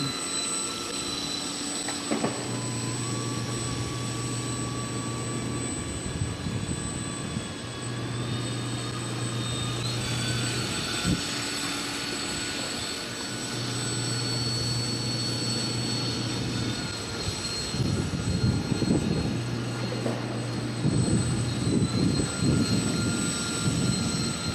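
Radio-controlled model boat's electric motor running with a steady whine that steps up in pitch about ten seconds in. A low hum comes and goes underneath, and there is uneven low rumbling near the end.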